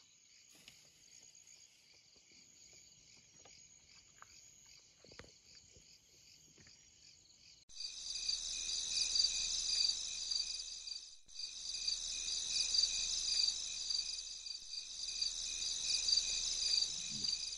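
Night chorus of crickets and other insects, a steady high-pitched trill. It grows much louder about eight seconds in.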